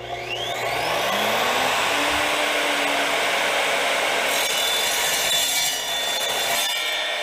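Evolution R255-SMS sliding miter saw spinning up with a rising whine from its soft start, then its toothed, non-abrasive multi-material blade cutting quickly through 3/16-inch-wall mild steel square tubing with a loud, harsh rasp. The cutting eases off near the end.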